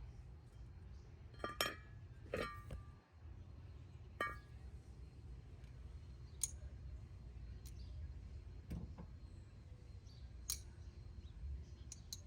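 Metal clinking as sockets and removed brake parts are handled: about five sharp clinks with a short ring, spread over several seconds, above a low steady background rumble.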